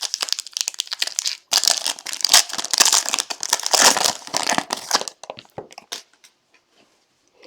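Plastic wrapping crinkling and tearing as a sealed trading-card box and pack are ripped open. The crackling is dense for about five seconds, with a brief pause about one and a half seconds in, then gives way to a few light clicks of handling.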